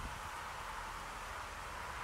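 Steady hiss of wind in the trees and rustling leaves, with a faint low rumble underneath.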